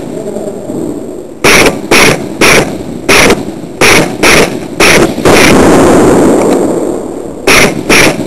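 Airsoft guns firing at close range in a small room: about nine sharp, loud shots at irregular half-second intervals. In the middle a louder noisy rush lasts about a second and a half and fades before the shots resume.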